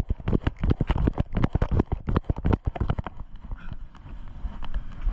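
Running footsteps on pavement, mixed with the thuds of a handheld camera jolting at each stride: a quick run of knocks that thins out after about three seconds.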